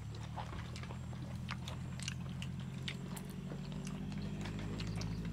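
A person eating: chewing with scattered small clicks and crunches, over a steady low hum that grows a little louder near the end.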